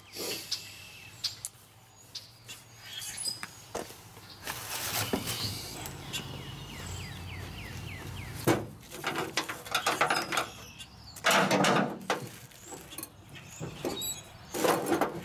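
Irregular knocks and scrapes of hands-on work at a Dana 71 axle's brake end as a wooden block and parts are handled, loudest about eleven seconds in; birds chirp faintly in the background.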